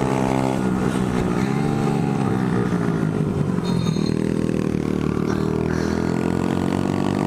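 Small 50cc single-cylinder pit bike engine running under way, its pitch rising and falling as the throttle is opened and eased off.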